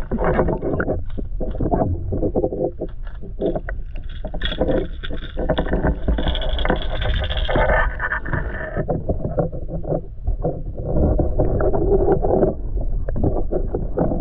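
Underwater sound from a submerged camera in lake water: a muffled, steady rumble with many small knocks and clicks, brighter for a few seconds in the middle.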